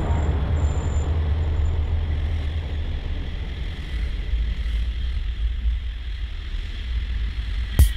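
Riding noise from a scooter moving through car traffic in a road tunnel: a steady low rumble of wind and road noise, with the surrounding traffic heard as an even hiss.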